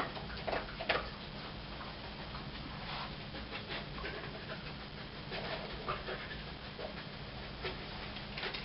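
A dog breathing in short bursts as it searches with its nose for a raised scent hide during nose-work. A steady low hum runs underneath.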